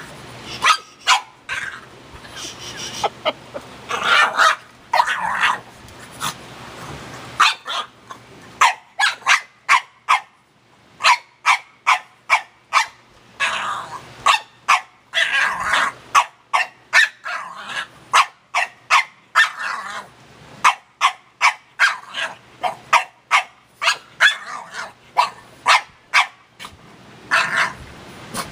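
French bulldog barking over and over in quick runs of short, sharp barks, several a second at times. A few longer drawn-out vocal 'talking' sounds break in among the barks.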